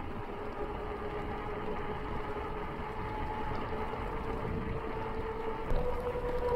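Loaded touring bicycle rolling fast on asphalt: wind rushing over the microphone and tyre noise, with a steady whine that slowly rises in pitch.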